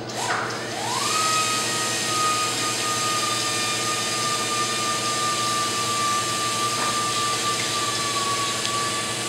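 A motor spinning up about a second in, then running steadily with a high whine over a rushing noise.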